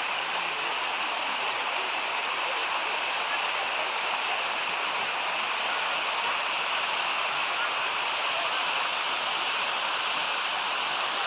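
Mountain stream cascading over waterfalls, a steady, even rush of falling water.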